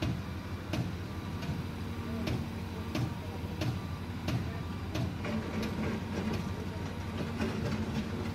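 Cat hydraulic excavator's diesel engine running steadily as the machine works its boom and bucket. Sharp knocks about every two-thirds of a second ring out over the engine.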